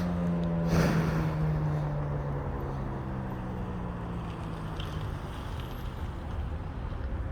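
Federal Signal 2001-SRN outdoor warning siren winding down at the end of its one-minute alert test. Its steady tone slides lower in pitch and fades out about five seconds in, with a brief rush of noise about a second in.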